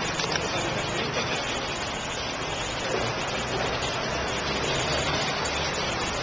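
Steady street background noise: traffic and indistinct voices.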